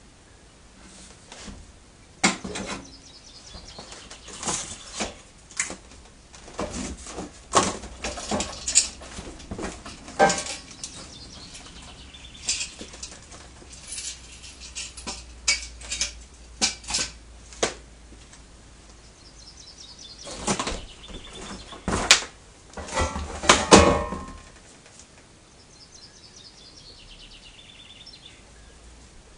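Clatter and knocks of galvanised steel trailer parts and cardboard packaging being handled and set down, in irregular bursts, the loudest knocks coming in a cluster about three-quarters of the way through.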